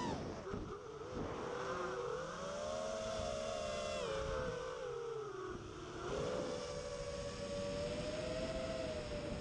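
Win5 FPV quadcopter's brushless motors whining in flight, the pitch dropping and climbing with the throttle: down about half a second in, up again near two seconds, down near five and a half seconds, then back up and held steady.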